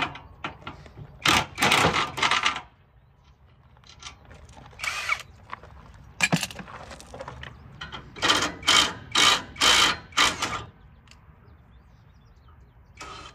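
Cordless power tool run in short trigger bursts, spinning nuts off a parking lot light fixture's bolts. There is a longer run early on, single bursts in the middle, then a quick string of about five short bursts near the end.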